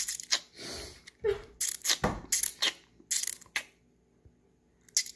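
Stifled laughter: a run of short, breathy puffs and snorts of air through the nose and covered mouth that stops about two-thirds of the way in.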